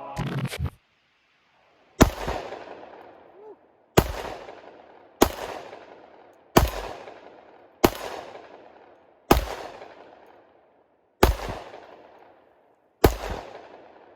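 Springfield XD-M Elite 3.8" Compact 10mm pistol fired eight times at a slow, even pace, one to two seconds apart. Each shot is followed by a long, fading echo.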